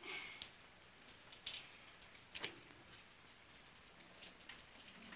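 Faint, scattered ticks and light patters of small debris and plaster dust trickling down through collapsed timbers, with two slightly louder ticks in the first half.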